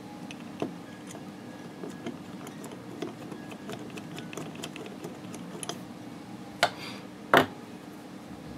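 Small clicks and taps of printer-kit frame corner parts and hardware being handled and fitted, with two louder sharp knocks less than a second apart near the end, over a steady low hum.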